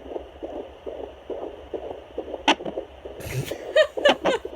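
Fetal Doppler picking up a baby's hiccups in the womb: a sharp thump about two and a half seconds in, over a fast, steady pulsing whoosh.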